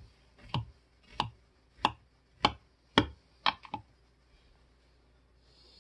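A knife chopping straight down through a soft cake, its blade knocking on the bottom of a glass baking dish: about eight sharp clicks roughly every half second, the last three quick together, then they stop.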